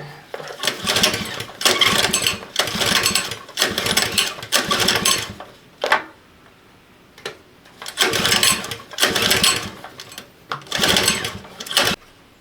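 A power tool run in repeated short bursts of about a second each, with a short pause in the middle.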